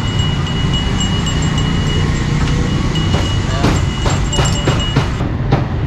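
Busy street-market background with a steady low traffic rumble and a thin, steady high ringing tone, joined about halfway through by a quick run of sharp knocks.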